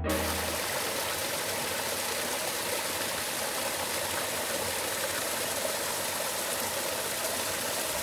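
Mountain stream cascading over rocks in a small waterfall: a steady rush of splashing water.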